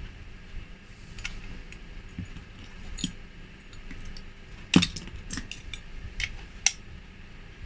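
Scattered hard clicks and clinks of small parts and tools being handled while a replacement sensor is fitted. The loudest knock comes just under five seconds in, with a sharper click near the end.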